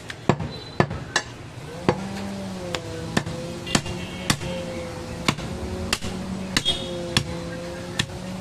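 Butcher's cleaver chopping goat meat and bone on a wooden log chopping block: a run of sharp thwacks, about two a second and unevenly spaced. A steady hum comes in about two seconds in.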